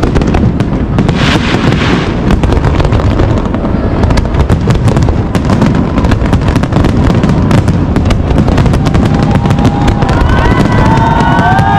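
Large fireworks display going off in rapid succession: a continuous deep booming rumble, thick with sharp bangs and crackles from many shells bursting at once.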